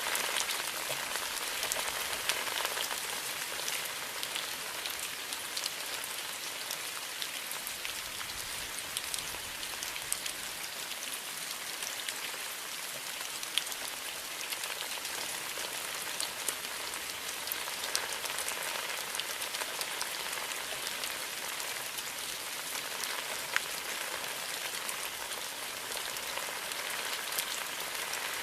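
Steady rain falling, with a continuous hiss and individual drops landing as sharp pats scattered throughout.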